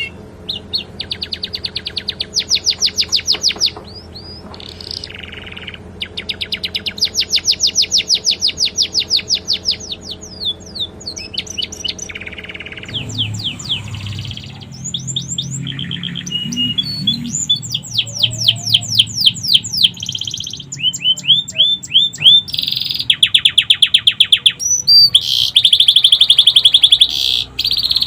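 Canary singing a long, varied song of rapid trills and chirp series, its song filled with phrases copied from the sikatan londo.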